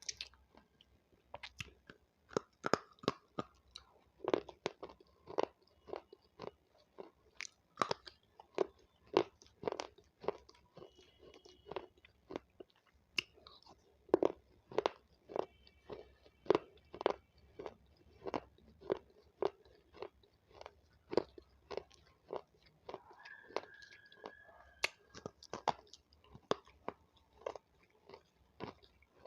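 Close-miked crunchy chewing of raw capsicum (bell pepper): a steady run of crisp bites and chews, about two to three a second.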